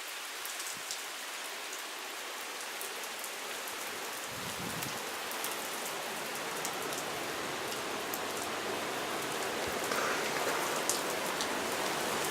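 Heavy thunderstorm rain pouring down and drumming on surfaces, growing slowly louder, with scattered sharp drop impacts. A brief low rumble comes about four seconds in.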